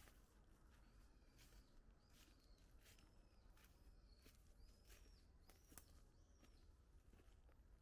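Faint crunching of footsteps on dry fallen leaves, in irregular crackles, while a small bird gives short arched chirps several times.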